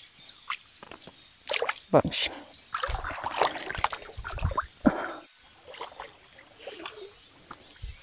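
Feet splashing and sloshing through shallow river water as a person wades in, in irregular bursts with a few low thumps.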